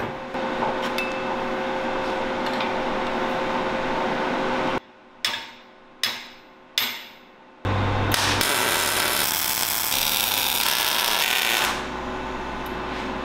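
Metal fabrication work on a steel tube frame: three sharp metal strikes that ring a little, then a loud steady hiss with a low hum for about four seconds that stops near the end.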